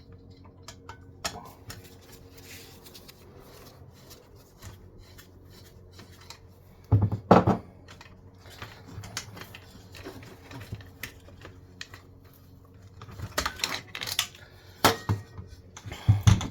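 Metal parts and hand tools clinking and clicking as a diesel heater is taken apart: scattered small clicks, a louder knock about seven seconds in and several more knocks near the end.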